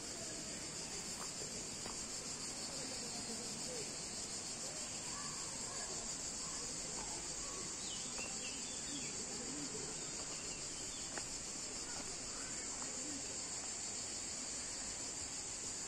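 Steady high-pitched insect chorus, with a few faint bird chirps about halfway through.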